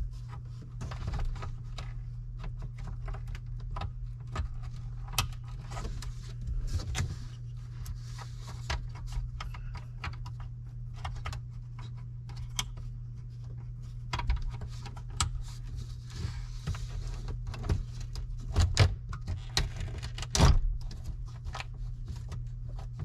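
Scattered clicks, taps and knocks of dash trim pieces and their screws being handled and fitted by hand, the sharpest knocks late on, over a steady low hum.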